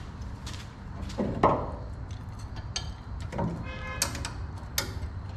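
Light metal clinks and knocks as a hook is hung on the front suspension to hold up a brake caliper, with a thump about a second and a half in and a brief metallic ring about four seconds in.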